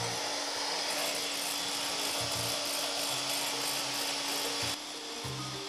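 Electric hand mixer running steadily with a motor whir, its beaters whisking egg whites in a glass bowl to stiff peaks. The whir drops suddenly and grows quieter near the end.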